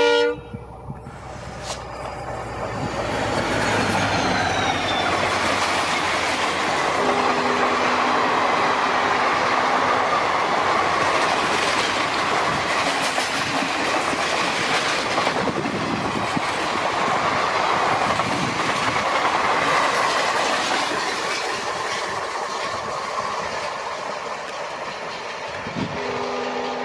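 A short, loud horn blast from a WDG4D diesel locomotive as it reaches the camera. A high whine falls in pitch a few seconds in. Then comes the steady rush and wheel clatter of the express's passenger coaches going by at speed, easing off slightly near the end as the train moves away.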